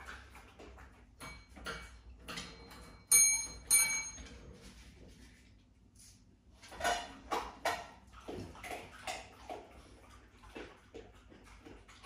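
A small bell struck twice, about three quarters of a second apart, each ring a clear high tone that dies away within half a second. A few seconds later comes a short run of louder clattering knocks as a hand takes treats from a glass jar, with light clicks scattered throughout.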